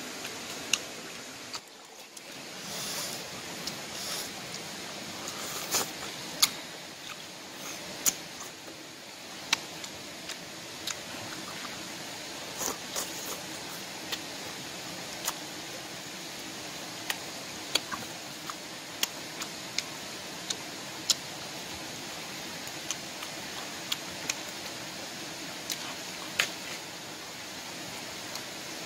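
A person eating by hand, with sharp, irregular mouth smacks and clicks from chewing over a steady background hiss.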